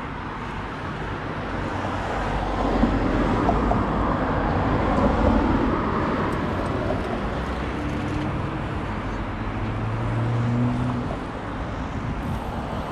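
Road traffic: cars passing close by, swelling a few seconds in, with the lower engine hum of another passing vehicle near the end.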